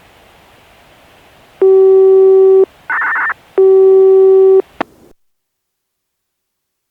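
Analog disaster-prevention radio channel heard through a scanner receiver: steady radio hiss, then a control-signal sequence of a one-second steady tone, a short warbling higher-pitched burst and another one-second tone. A click follows and the carrier drops, cutting off to silence, as the transmission closes.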